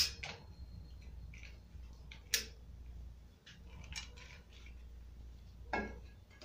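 Metal kitchen tongs clicking and tapping against a frying pan as a dried chile is turned over to toast. A few separate light clicks, the sharpest right at the start.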